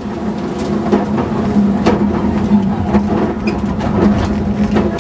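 Subaru Impreza WRX STI rally car's turbocharged flat-four engine heard from inside the cabin, holding a steady note at speed. Scattered sharp knocks and clicks come through the body.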